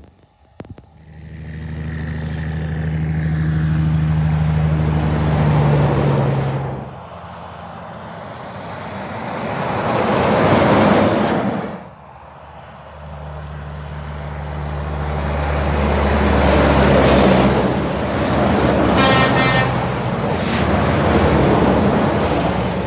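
Diesel semi trucks passing close by on a highway one after another. Each engine drone grows as the truck approaches and gives way to a rush of tyre and wind noise as it goes by. The first pass-by cuts off abruptly about halfway through, and the second builds up again, with a short high-pitched sound near the end.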